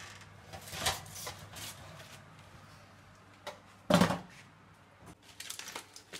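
A metal roasting tin with a wire rack is drawn out of an oven with a few clanks, then set down on a glass ceramic hob with a loud clunk about four seconds in. Near the end, aluminium foil crinkles as it is pulled open.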